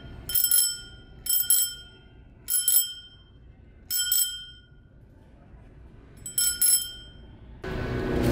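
A small bicycle bell being rung in quick pairs of bright dings, five times with short pauses between.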